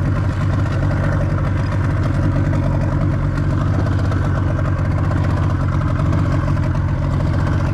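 Outboard motor of a small fishing boat running steadily, an even low hum that holds the same speed throughout.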